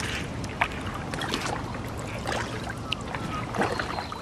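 Kayak moving along a calm creek: water lapping and dripping around the hull, with short sharp splashes and clicks scattered through.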